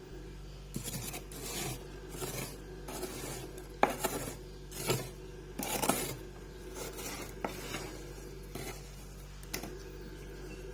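Freezer frost being scraped in a series of rough, rasping strokes, a dozen or so, coming less often near the end, over a low steady hum.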